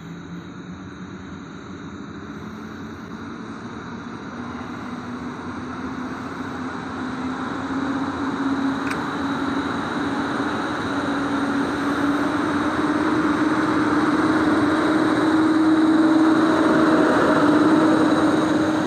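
Electric train accelerating toward the microphone. Its traction-motor whine rises slowly in pitch as the running noise grows steadily louder.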